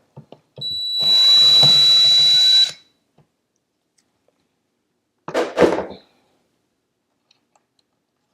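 Cordless drill-driver running for about two seconds with a steady high whine, backing out cabinet door hinge screws. A brief clatter follows about five seconds in.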